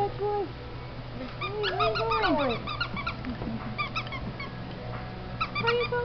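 Six-week-old Soft Coated Wheaten Terrier puppy whimpering in drawn-out, wavering whines that slide down in pitch at the end. They come about a second and a half in and again near the end, with short high squeaks in between.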